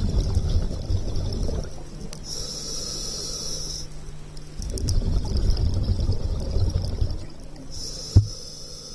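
Scuba regulator breathing heard underwater: two slow breaths, each a bubbly rumble of exhaled air followed by the hiss of the next inhalation through the regulator. A single sharp click near the end.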